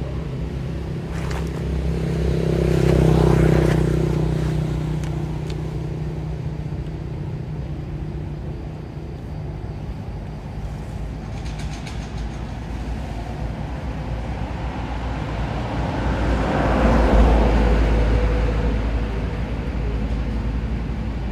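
Motor traffic on a nearby road: a steady low engine hum, with two vehicles passing, one swelling up and fading about three seconds in and another late on.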